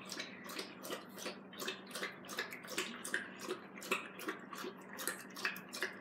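Dog lapping water quickly and rhythmically from a plastic bowl, about three wet laps a second with light splashing.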